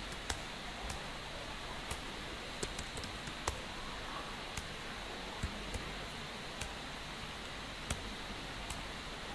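Computer keyboard typing in scattered, uneven keystrokes, over a steady faint hiss.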